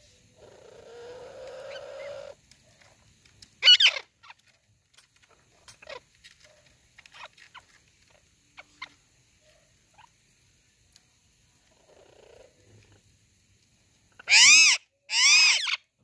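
Alexandrine and Indian ringneck parakeets calling: a soft low chatter near the start, one sharp screech a few seconds in, scattered small chirps and clicks, then two loud screeches close together near the end.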